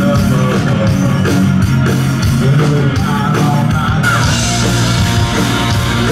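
Live rock band playing through the stage speakers: electric guitars over a steady drum beat.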